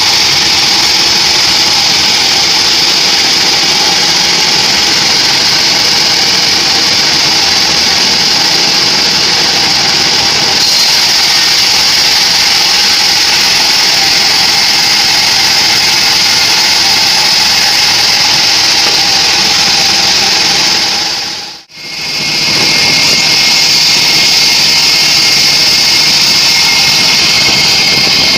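Homemade band sawmill running and sawing through a teak log: a loud, steady mechanical noise with a strong hiss. It cuts out for a moment about two-thirds of the way through, then resumes.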